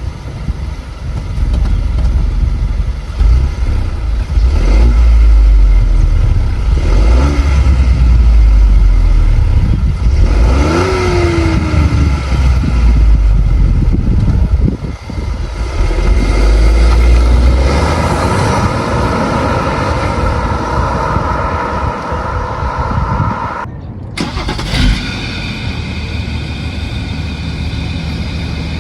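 A car engine running and being revved, its pitch rising and falling with each rev. About 24 seconds in there is a sudden cut to another steadily running engine.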